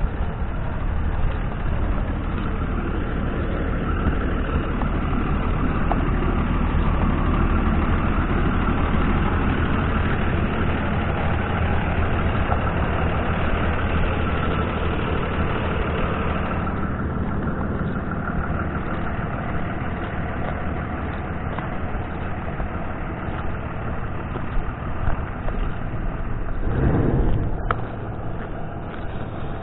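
Steady vehicle engine and road rumble. It eases off a little about halfway through, with a brief louder swell near the end.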